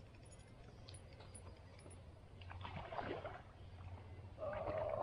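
Small lake waves lapping and splashing against the rock shore, a couple of soft splashes, with a brief pitched sound near the end.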